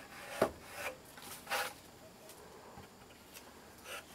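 A few short scraping rubs, the loudest about half a second in and another about a second and a half in.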